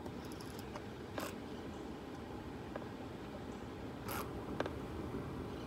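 Two brief scrapes, about a second in and about four seconds in, with a few faint clicks, over a low steady background rumble.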